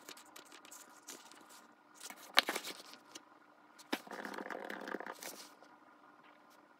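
Faint kitchen handling sounds while cooking begins: scattered light clicks and knocks of utensils and cookware, with one sharper knock about two and a half seconds in and about a second of steady scraping noise near the middle.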